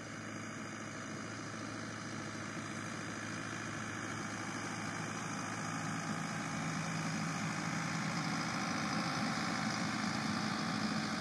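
Tractor engine running at a steady speed while it drives a rear-mounted Vicon spreader broadcasting seed, getting gradually louder as the tractor comes closer.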